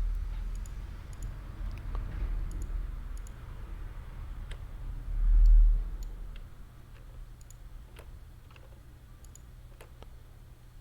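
Irregular computer mouse and keyboard clicks over a low steady hum, with a brief low rumble about halfway through that is the loudest moment.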